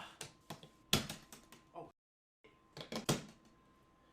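A shipping case being handled and opened: a run of sharp clicks and knocks, the loudest about a second in, with a brief dead gap about two seconds in and a few more knocks after it.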